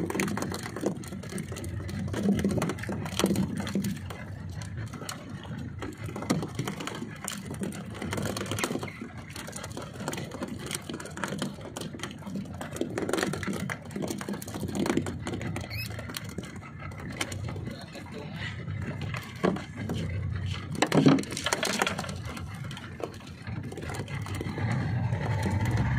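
Fishing tackle being handled in a small boat: scattered clicks and rustles of line and hook against a low wash of wind and water, with one louder knock about three-quarters of the way through.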